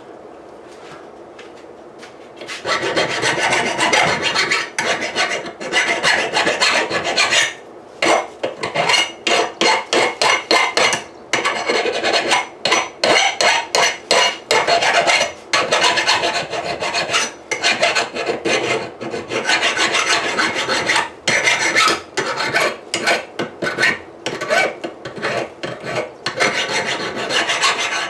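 Hand file rasping back and forth over the edges of a steel anvil, taking off the sharp edges left from grinding. The strokes start about two and a half seconds in, with a run of short, quick strokes in the middle.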